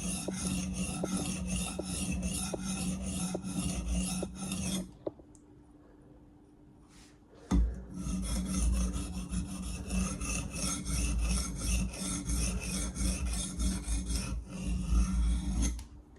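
Steel blade drawn back and forth in quick, rhythmic scraping strokes across a sharpening surface to deburr the edge, several strokes a second. The strokes pause about five seconds in, a single knock comes about two and a half seconds later, and the strokes resume about eight seconds in.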